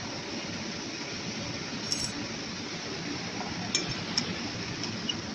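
Steady hum of factory machinery, with a few light, sharp clinks of hard objects about two seconds in and twice more near four seconds.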